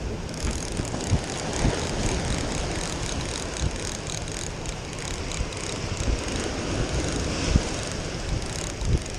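Surf breaking and washing over breakwater rocks, with wind buffeting the microphone in low thumps. A light, rapid clicking runs through much of it.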